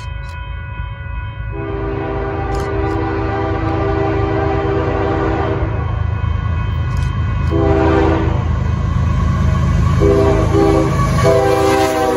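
Air horn of an approaching Union Pacific GE ES44AC (C45ACCTE) diesel locomotive leading an intermodal freight train. It sounds a long blast, a short one, two quick short ones, then another long blast, over the engines' low rumble, which grows louder as the locomotives come close and pass near the end.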